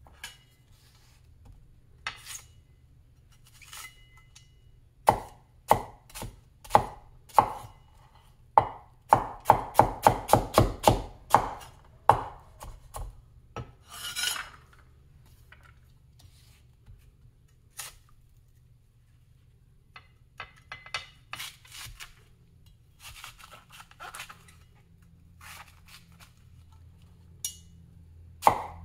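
Large vintage Chinese cleaver chopping onion on a wooden cutting board: a few single knocks, then a quick run of about four strokes a second, a longer scrape of the blade across the board, and scattered lighter cuts after it.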